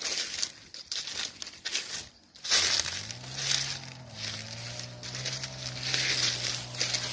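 Footsteps crunching and rustling through a thick layer of dry fallen leaves. From about two and a half seconds in, a low steady hum runs underneath to the end.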